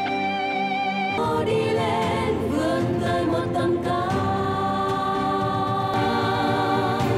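Music: a choir singing long held chords, moving to a new chord about a second in and again about four seconds in.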